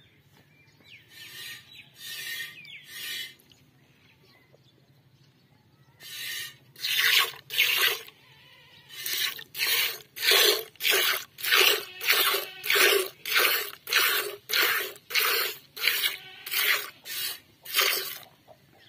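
Squirts of milk from a hand-milked water buffalo's teat hitting a metal bucket, each squeeze a short hissing spurt. A few scattered squirts come first, then a steady rhythm of about one and a half squirts a second. The buffalo has mastitis.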